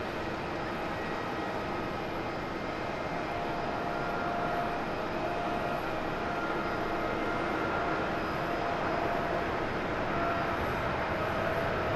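Boeing 787-8 Dreamliner's GEnx turbofan engines on the takeoff roll: a steady jet rush with a few held fan tones on top, growing slightly louder about four seconds in as the airliner accelerates down the runway.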